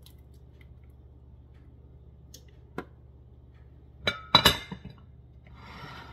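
Plastic food processor bowl and small ceramic bowl clinking together as salsa is tipped out: one light click, then a quick cluster of loud clinks and knocks about four seconds in, then a soft scraping near the end.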